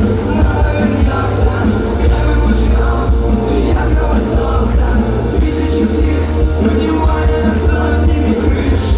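Live punk rock band playing loud, with drums, bass and guitars, and cymbal crashes every second or so.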